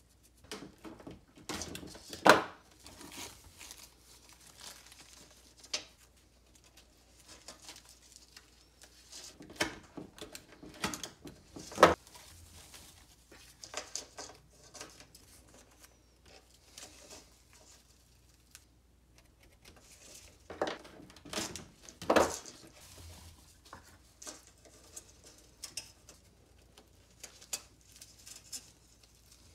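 Hands handling natural-fibre rope and masking tape on a wooden workbench: irregular rustling and scraping, broken by sharp knocks or snaps about two seconds in, around twelve seconds in and about twenty-two seconds in.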